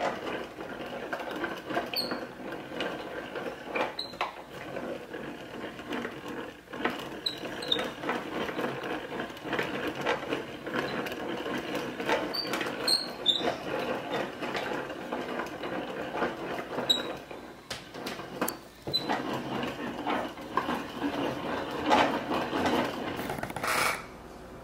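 Yarn ball winder turning, its gears whirring and clicking steadily as it pulls yarn off a wooden umbrella swift, with short high squeaks now and then. The winding stops shortly before the end.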